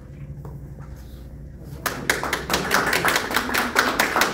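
An audience clapping, breaking out about two seconds in and continuing as dense, quick claps.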